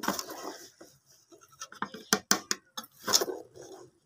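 A metal spoon scraping and clicking against the inside of an aluminium pot as cooked aloo pulao rice is turned over, in short irregular strokes with gaps between them.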